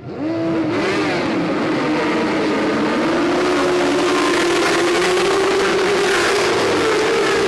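A pack of racing superbikes firing up and accelerating away from a standing Le Mans-style start: the engines come in suddenly just after the start, rev up, then run together at high revs as a loud, dense mass of engine noise as the bikes pass.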